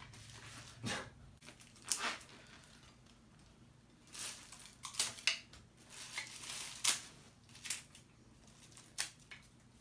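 Packaging being torn and pulled off new aluminium handlebars: foam wrap and a plastic bag rustling and crinkling in irregular short snaps, busiest in the middle.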